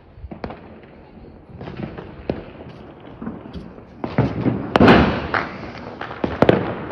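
Firecrackers going off: a scatter of pops and cracks, the loudest bang about five seconds in and another sharp crack a second and a half later.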